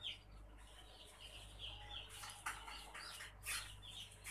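Domestic chicken chicks peeping faintly, scattered short cheeps that fall in pitch, over a steady low hum.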